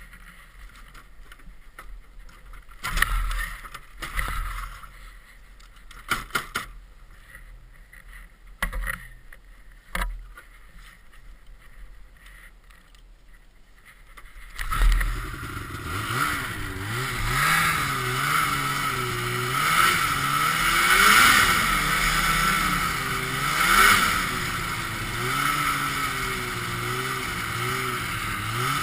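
A few scattered knocks and handling clunks with no engine heard. About halfway through, a Ski-Doo Blizzard 5500's 503cc two-stroke engine comes in suddenly and keeps running, its revs rising and falling repeatedly.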